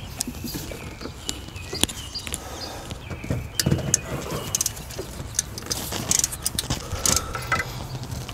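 Light metallic clicks and rattles of hand tools and parts being handled down in an engine bay, scattered through and coming in a quick cluster near the end, over a low steady hum.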